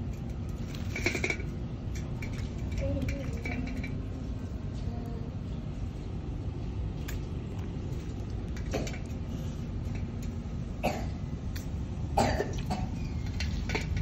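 Indian ringneck parrot bathing in a shallow steel plate of water, splashing and flapping its wet wings. There are short splashy bursts about a second in and three more in the second half, over a steady low rumble.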